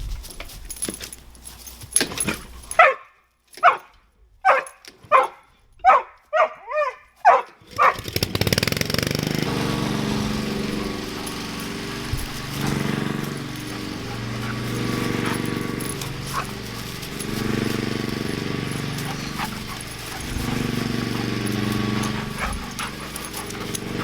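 A dog barks about eight times in quick succession, and the last barks bend down in pitch. From about eight seconds in, a steady low drone takes over.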